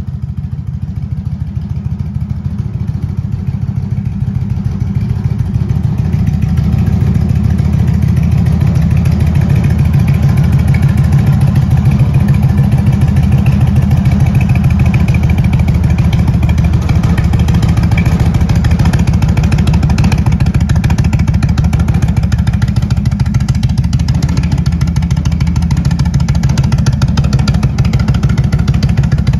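2023 Indian Chief's air-cooled V-twin idling steadily through aftermarket Rinehart exhaust with a Stage 1 intake: a deep, loping exhaust note that grows louder over the first several seconds, then holds.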